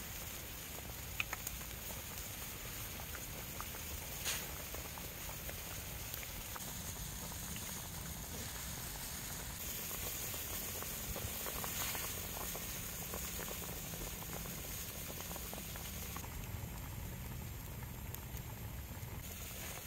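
Soup boiling hard in a steel wok over a wood fire: a steady bubbling, with scattered small clicks.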